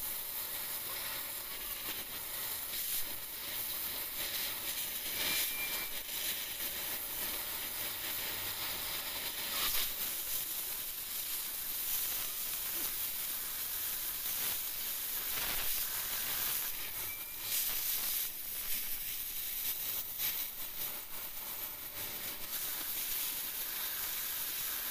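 Oxy-LPG cutting torch hissing steadily as it cuts through a steel car leaf spring, with occasional short pops.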